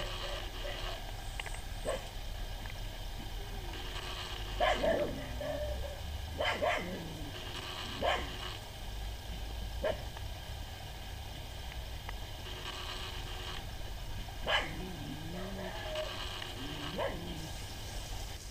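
Dog barking off and on, single barks and yips a second or a few seconds apart, a few of them with a whining rise and fall in pitch.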